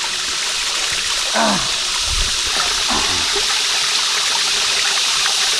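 Shallow rocky stream trickling with a steady hiss as a soft plastic water bladder is dipped and filled in it. There is a low thud about two seconds in.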